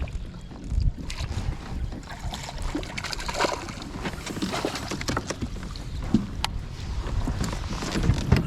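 Irregular knocks, clicks and rustles of gear on a kayak, with water noise and some wind on the microphone.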